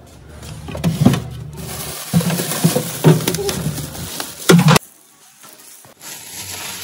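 Clear plastic shopping bags rustling and crinkling as they are handled, with a few sharp knocks among them; the noise stops suddenly about five seconds in, and some rustling starts again near the end.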